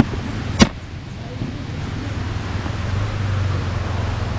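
Enduro dirt bike engine running at low revs, with one sharp knock about half a second in.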